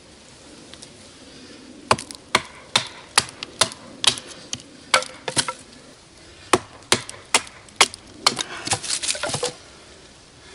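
Dry wood being chopped with a large handmade knife: a run of sharp knocks starting about two seconds in, roughly two to three a second, then a quicker flurry of smaller knocks near the end.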